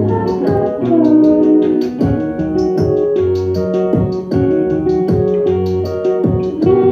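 Live music: a keyboard playing sustained chords over a bass line, with a regular beat.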